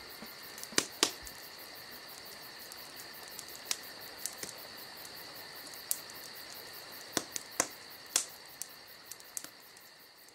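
A high, steady chirring like crickets, with a handful of sharp clicks scattered through it, slowly fading out toward the end.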